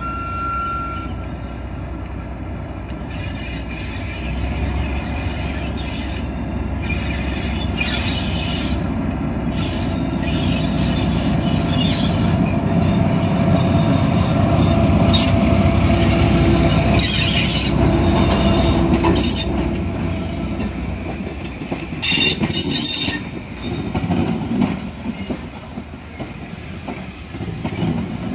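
Class 08 diesel shunter with its English Electric six-cylinder engine hauling a rake of Mk1 coaches past, building to its loudest about halfway through as the locomotive goes by. The coaches then roll past with clickety-clack over the rail joints and short spells of wheel squeal.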